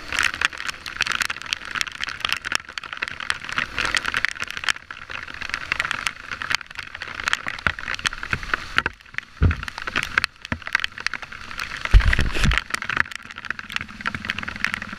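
Dirt bike being ridden over a muddy trail, heard from a camera on the bike: a dense, crackly rush of engine and wind noise, with heavy low thumps about nine and a half seconds in and again around twelve seconds.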